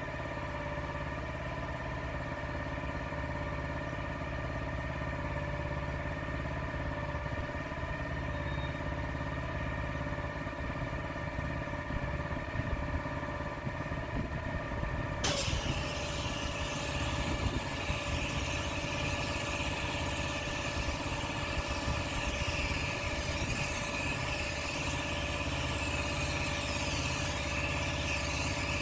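Pressure washer's petrol engine running steadily. About halfway through, the high-pressure water jet starts spraying and a loud hiss stays on over the engine.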